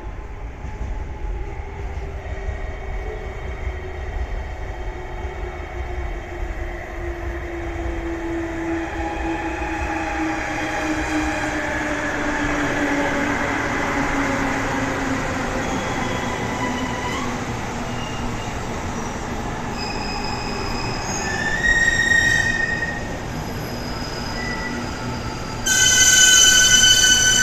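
Electric train slowing into a station: its motor whine sinks steadily in pitch, then high-pitched brake and wheel squeal sets in near the end, loudest in the last seconds as it comes to a stop.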